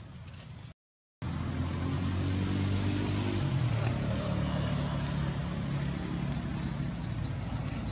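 A motor vehicle engine running steadily with a low hum, starting about a second in after a brief drop-out to silence; its pitch shifts a little partway through.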